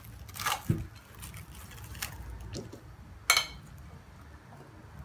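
Soft rustling and scraping as cling film is pulled back from a plate of boiled chickpeas and the plate is tilted over a bowl, with one sharper crackle a little over three seconds in.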